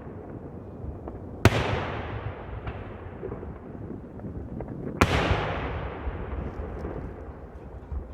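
Two loud firework bangs, about a second and a half in and about five seconds in. Each is followed by a long fading rumble of echo, with a few faint crackles between.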